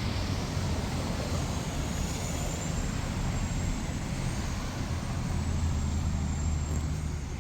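Street traffic: a motor vehicle's engine runs close by over a steady wash of road noise, its low hum growing stronger for a couple of seconds near the end.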